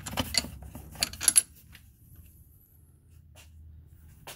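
Metal hand tools and a bolt clinking and clicking: a quick run of sharp metallic clicks in the first second and a half, and one more click near the end.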